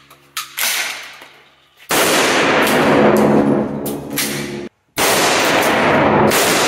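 Adler Arms HT108T 12-gauge pump shotgun being racked and fired. The pump clacks near the start, then loud shots come about two seconds in and again about five seconds in, each ringing on for a couple of seconds.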